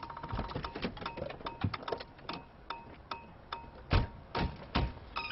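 Rhythmic percussion music played on everyday objects: sharp clicks and knocks over a repeating mid-pitched beeping tone, with three heavy thumps a little before the end.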